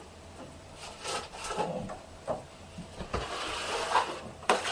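A stiff wallpaper template being picked up and unrolled: paper rustling and sliding, with a low knock about three seconds in.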